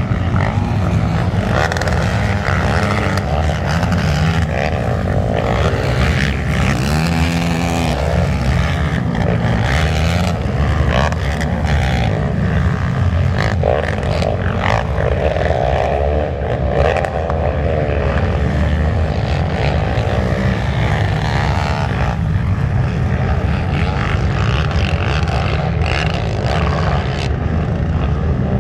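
Several racing quads (four-wheel ATVs) running hard around a dirt motocross track, their engine notes rising and falling as the riders rev through the turns and jumps.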